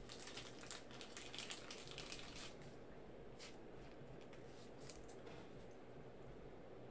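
Faint rustling and clicking of trading cards being handled and slid from the pack, busiest in the first couple of seconds, then a few soft isolated ticks.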